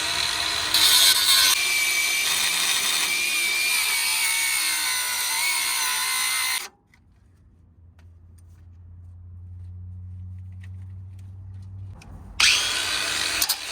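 Bauer 20V brushless cordless angle grinder cutting through a metal bumper with a cutting blade: a high whine over harsh grinding noise. It stops suddenly about seven seconds in, leaving a quieter low hum, and starts cutting again about twelve seconds in.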